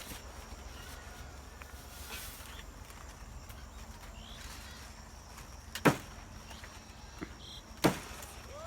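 Two sharp knocks about two seconds apart, the second more than halfway through, over a low steady rumble and faint bird chirps.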